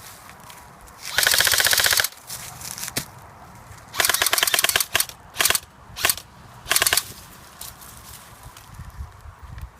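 Airsoft gun firing full-auto in rapid bursts: a long burst about a second in, another about four seconds in, then three quick short bursts.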